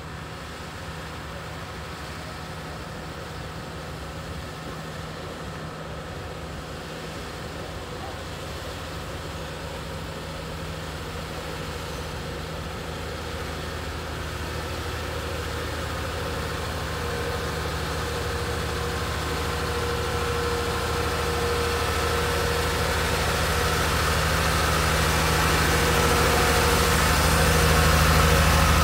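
Heavy distributor truck's engine running steadily as the scrub-seal rig approaches slowly, growing gradually louder until it is close by near the end.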